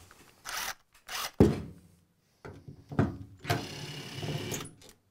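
Cordless driver fitted with a Torx T30H tamper-resistant bit working on a screw: a few short bursts and a sharp knock as the bit is seated, then the motor runs steadily for about a second near the end as the screw is driven out.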